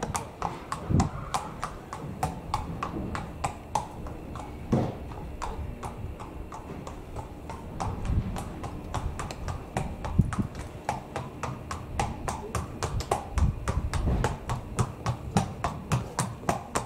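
A horse's hooves clip-clopping at a walk on concrete: an even train of sharp hoof strikes, about three to four a second, quieter for a couple of seconds in the middle. Occasional low thuds sound under the hoofbeats.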